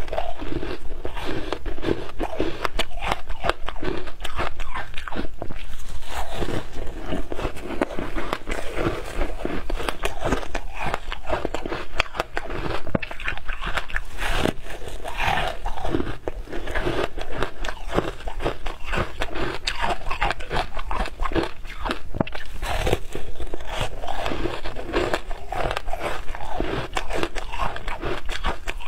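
Frozen shaved ice topped with passion fruit pulp being bitten and chewed: a continuous run of many quick, crisp crunches and cracks.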